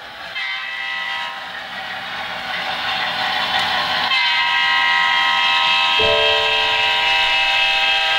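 A sound-equipped H0 scale model diesel locomotive's multi-note air horn. It sounds from about half a second in, changes notes around four seconds, and a lower horn chord joins at about six seconds and holds on.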